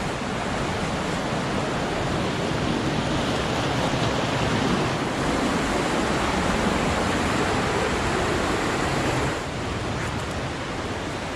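Steady rush of rain-swollen floodwater running through a normally dry desert wash, with a waterfall nearby. It gets a little quieter about nine seconds in.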